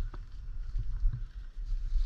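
Low rumble of wind buffeting the microphone, with a few faint ticks.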